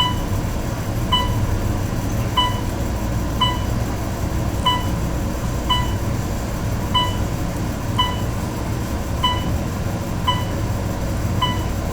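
Otis elevator car travelling nonstop, a steady low rumble of the moving cab. A short high electronic beep sounds about every 1.2 seconds over it.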